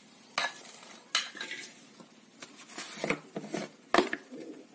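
A spoon clinking against a stainless-steel bowl as spice powder is spooned in: about five sharp clinks, spread unevenly.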